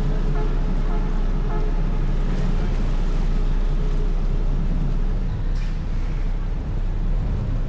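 Passenger ferry's engines running steadily as it pulls away from the wharf: a continuous low rumble, with a steady mid-pitched hum over the first few seconds.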